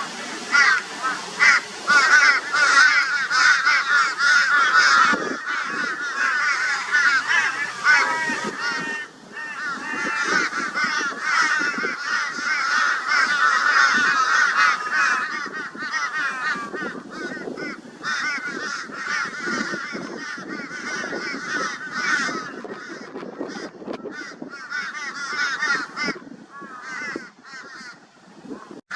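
A flock of crows cawing loudly and without a break in a dense, overlapping chorus. This is the raucous mobbing call they use against a barn owl. The calling eases briefly about nine seconds in and thins out near the end.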